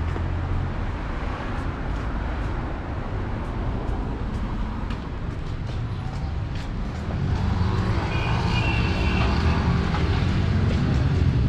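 City street traffic: a steady rumble of car engines and tyres, growing louder in the second half.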